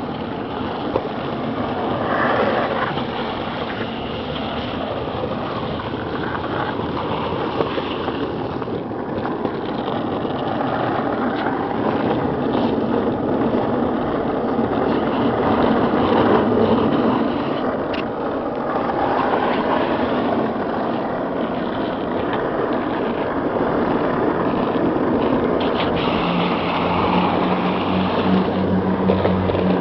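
Steady rushing noise of wind and longboard wheels rolling fast on asphalt. A low steady engine hum from a road vehicle comes in near the end.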